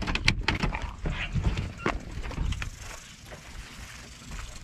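Irregular clicks and knocks inside a moving pickup truck's cab, dense at first, then giving way to a soft hiss with scattered ticks.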